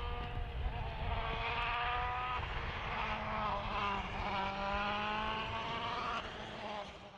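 Rally car engine accelerating hard through the gears: the revs climb, drop sharply at two upshifts about two and four seconds in, climb again, then fade away near the end.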